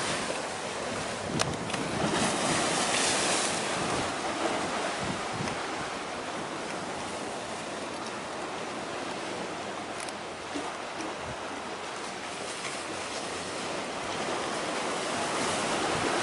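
Wind blowing on the microphone over a choppy sea, a steady gusting noise with the wash of waves beneath it.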